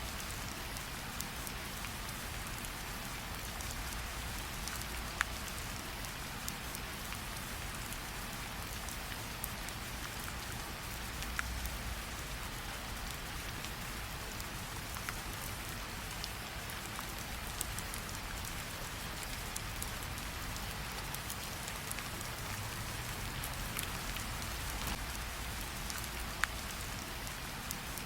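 Steady rain hiss mixed with a crackling campfire. A few sharp pops stand out, about 5, 11 and 26 seconds in.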